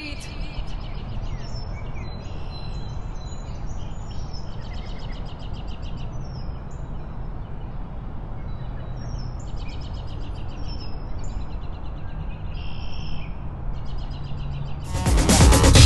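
Street ambience: birds chirping on and off over a steady low rumble. Music comes in loudly near the end.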